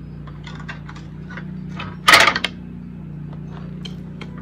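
Light metal clicks and scrapes of a screwdriver working the spring-loaded clip on a Cub 22 sickle bar mower's knife head, with one sharper, louder metal clack about two seconds in. A steady low hum runs underneath.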